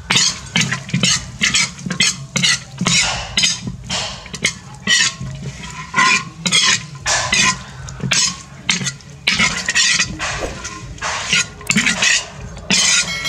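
Metal spatula scraping and stirring around a large metal wok as food is stir-fried, in quick repeated strokes about two to three a second.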